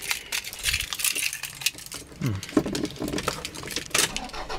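Car keys jangling and clinking: a quick series of sharp metallic clicks and chinks.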